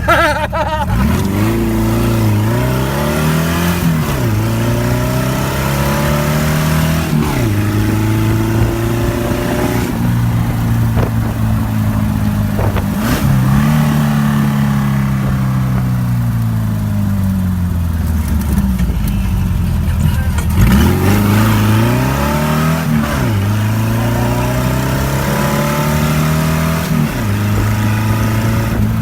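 Off-road buggy's engine under way, its pitch climbing and dropping over and over as it is revved up and eased off.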